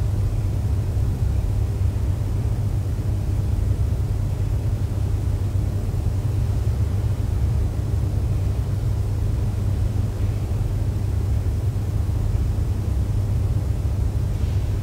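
A steady low rumble with a faint hiss over it, unchanging throughout, with no speech or music.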